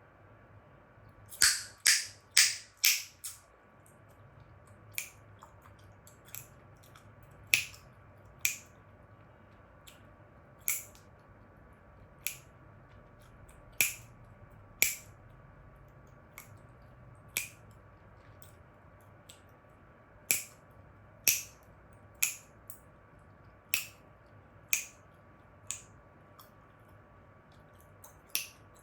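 Chewing gum snapping and cracking in the mouth: a quick run of four loud cracks about a second and a half in, then single sharp snaps roughly every one to two seconds.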